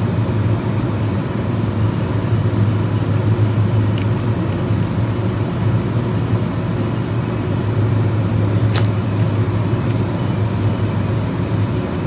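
Steady, loud low hum of running machinery in an industrial space. Two light clicks about four and nine seconds in come from a small screwdriver working the screws of a Siemens Profibus connector.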